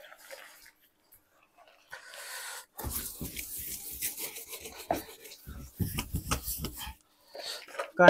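Water sloshing and splashing as it is scooped from a plastic bucket with a mug, with hands rubbing and scrubbing a washing machine's casing, starting about three seconds in as a run of short, uneven knocks and splashes.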